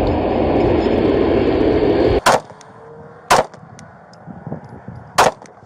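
Three pistol shots picked up by a police body-camera microphone, as the officer fires three rounds at the suspect about 100 feet away. The first two come about a second apart and the third about two seconds later. They are preceded by a loud rushing noise that cuts off suddenly just before the first shot.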